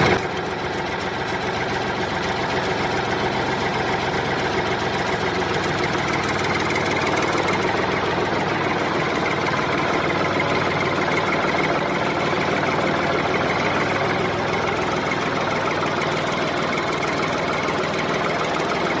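Diesel tractor engine running at a steady idle with a knocking beat.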